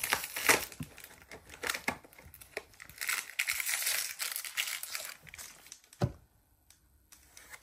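Crinkly plastic mystery-bag packaging being handled and rustled in bursts for about five seconds, followed by a single knock about six seconds in.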